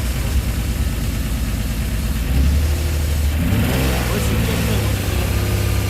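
BMW M50 straight-six engine running with a misfire. Its note rises briefly about halfway through, then settles back.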